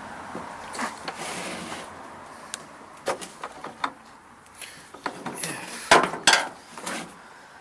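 Handling noise: scattered sharp knocks and clicks with a short scrape near the start, the loudest two knocks coming close together about six seconds in.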